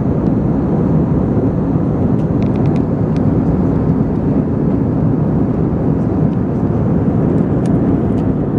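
Cabin noise of an Airbus A320-214 in flight, heard from a window seat: a steady, loud, low rumble of engine and airflow noise. A few faint ticks come about two and a half seconds in.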